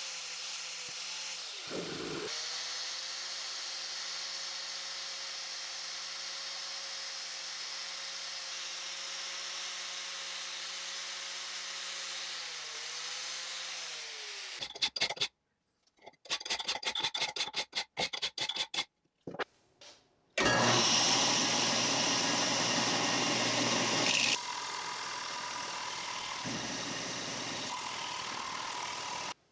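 An angle grinder runs against the steel jaw of the wrench, its motor whine steady and dipping briefly about two seconds in. Then come a few seconds of choppy hand-file strokes on the wrench in a vise. Last, a belt sander grinds the wrench loudly, drops in level midway and stops near the end.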